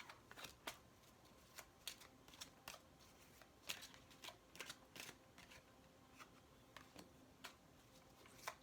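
Tarot cards being shuffled and handled by hand: faint, irregular soft clicks and snaps of the cards, about two a second, with a louder snap a little before the middle.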